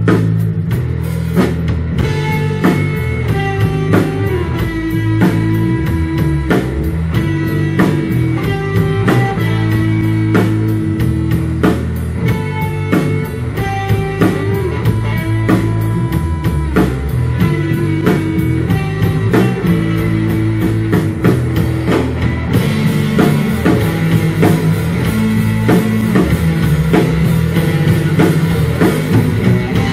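Live rock band playing an instrumental passage on electric guitars and a drum kit, with a steady, driving beat. The sound grows brighter and fuller about two thirds of the way through.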